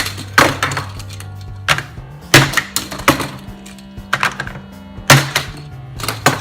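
Background music with a steady low bass and sharp hard hits every second or so.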